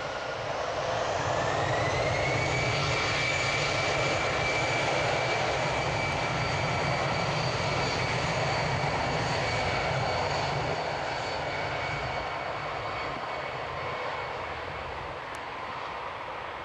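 Boeing 737-800's CFM56-7B turbofan engines spooling up, their whine rising in pitch over the first couple of seconds, then running with a steady whine over jet rumble. The sound fades gradually in the last few seconds as the airliner moves away along the ground.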